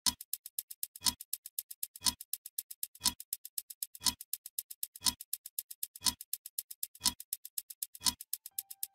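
Countdown clock ticking: a loud tick once a second, with several fainter, quicker ticks between each one.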